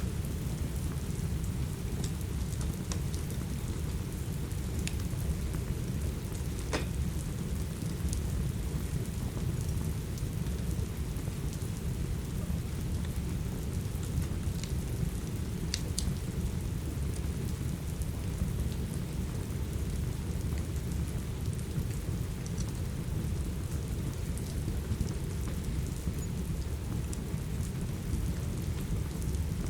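Steady rain with a low, dense rumble, and scattered sharp crackles and pops from a wood fire, a few seconds apart.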